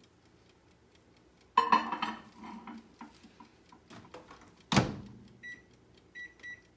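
Over-the-range microwave oven being loaded and set: a dish clatters about a second and a half in, the door shuts with a sharp thump, then three short keypad beeps near the end.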